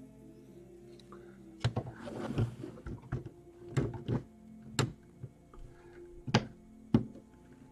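Plastic LEGO bricks being handled and pressed onto a model: a string of sharp clicks and knocks, with a brief rustle about two seconds in, over quiet background music.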